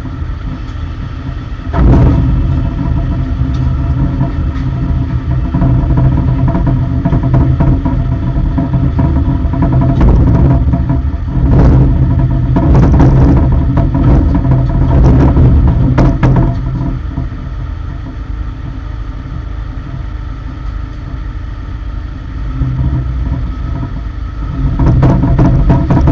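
Engine of an aircraft lower-deck cargo loader running, speeding up and settling back at times, with several sharp metal clanks.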